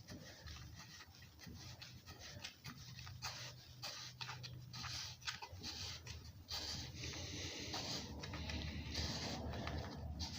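Faint scraping and small clicks of hands working on a chainsaw's plastic air filter cover, threading it back on, over a low steady hum.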